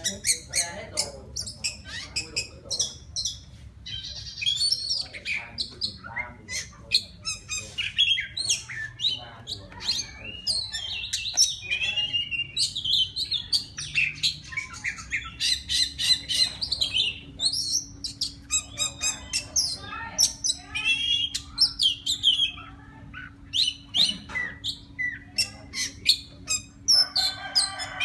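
Oriental magpie-robin singing a long, varied song of quick whistles, chirps and rasping notes, with no pauses. This is a male's song calling to a female.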